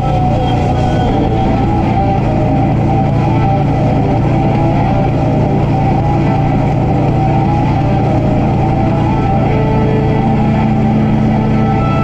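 Harley-Davidson Road Glide Limited's V-twin engine running steadily at highway speed, with steady wind rush, and music playing over it.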